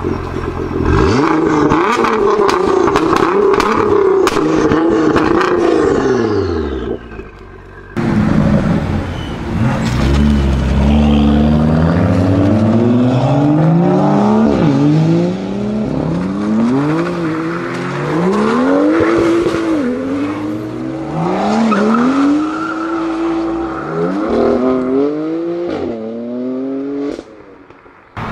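Nissan GT-R's twin-turbo V6 revving with sharp exhaust crackles and pops. After a cut at about eight seconds, a BMW M car's straight-six accelerates hard through several gears, its pitch rising and dropping back at each upshift.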